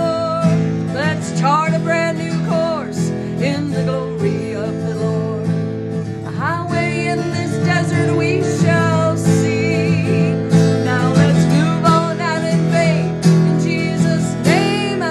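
A woman singing while strumming an acoustic guitar, her voice gliding and wavering in pitch over steady strummed chords.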